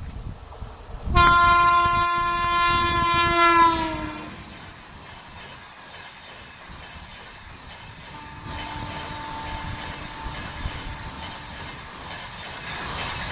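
Indian Railways passenger train sounding a loud, steady horn blast for about three seconds that drops slightly in pitch as it ends, then running by with rumble and wheel clickety-clack. A second, fainter horn note sounds for about two seconds in the second half.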